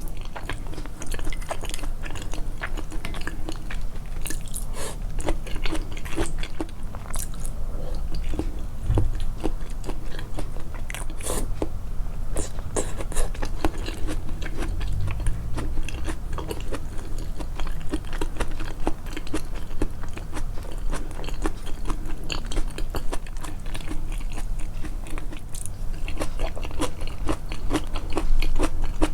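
Close-miked chewing and biting of food, with crisp crunching clicks coming thick and fast; the chewing sounds are boosted in editing.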